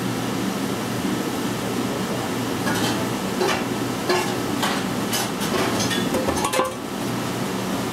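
Parmigiano Reggiano rasped on a flat hand grater, a run of quick scraping strokes heard most clearly from about three seconds in, roughly two a second, over a steady kitchen ventilation hum.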